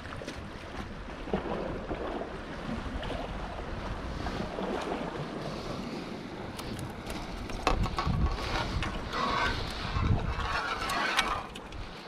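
Wind buffeting the microphone over the wash of sea water along the shore, with scattered clicks and rustling in the second half.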